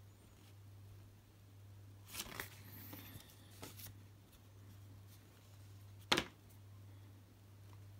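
Quiet handling noise of a smartphone held in the hand: a few faint rustles about two to four seconds in and one sharp click about six seconds in, over a steady low hum.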